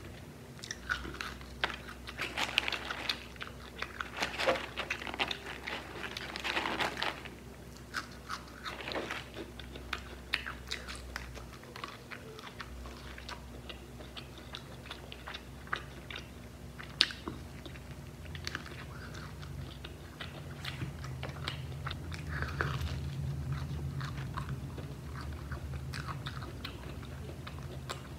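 Close-miked biting and chewing of crispy-coated fried chicken: the breaded crust crunches in many sharp crackles, thickest in the first several seconds, with one loud crack about two-thirds of the way through. A low steady hum joins the chewing in the second half.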